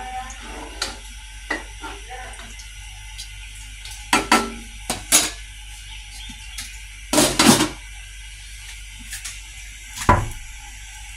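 A spoon and pot knocking in a kitchen: a few sharp clicks of the spoon against the cooking pot about four to five seconds in, a longer clatter around seven seconds in, and a heavier, deeper knock about ten seconds in.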